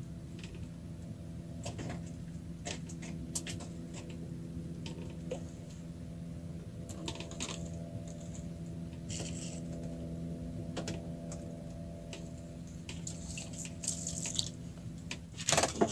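Small clicks and ticks of hands handling a fishing hook and line in a wooden boat, with water dripping and lapping, over a steady low hum. A louder clatter comes near the end.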